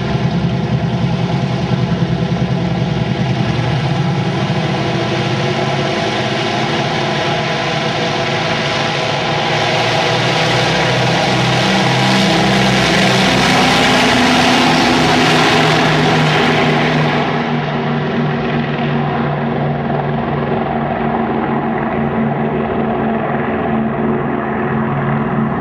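Grumman F7F Tigercat's twin Pratt & Whitney R-2800 radial piston engines at takeoff power. They rise in pitch and loudness as the aircraft accelerates down the runway, are loudest about halfway through as it passes close by, then run steadily as it climbs away.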